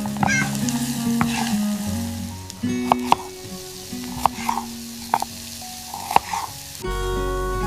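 Food sizzling as it fries in a pan, with scattered clinks and taps of a utensil, over soft background music. The sizzling stops near the end and the guitar music carries on.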